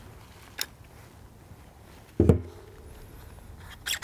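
Handling sounds from a Calico M900 9mm carbine being worked by hand: a light click, then about two seconds in a loud clunk with a brief ringing tone, and a couple of sharp clicks near the end.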